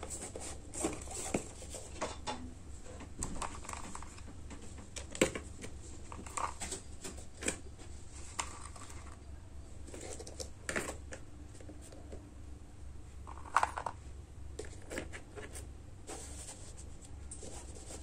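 Cardboard drawer at the base of a cardboard air-cooler model slid out and pushed back by hand, with scraping, rustling and scattered light clicks as the pieces in its tray are handled; a steady low hum runs underneath.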